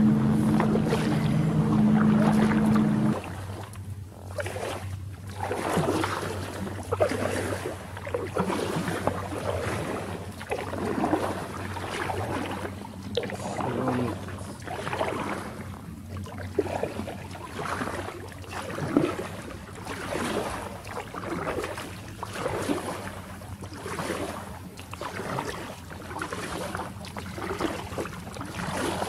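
Double-bladed kayak paddle strokes in calm water: a soft splash and drip about every second and a half. For the first three seconds a loud steady hum covers them, then cuts off abruptly.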